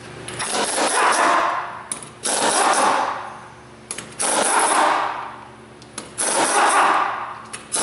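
Pneumatic impact wrench loosening a car's wheel lug nuts, one nut after another: four bursts about two seconds apart, each starting abruptly and fading away as the nut spins free.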